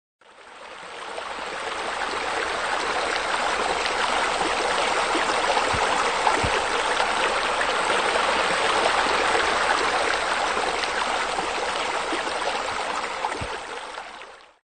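Steady splashing of running water, as from a pool's spillover water feature. It fades in over the first two seconds and stops just before the end.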